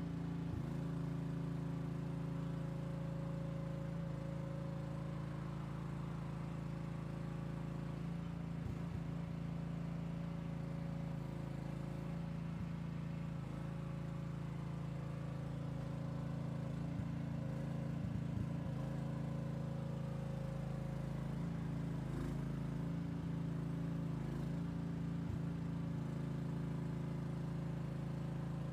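Wallemac mini excavator's engine running steadily with a constant low hum while the machine digs, with a few short knocks scattered through.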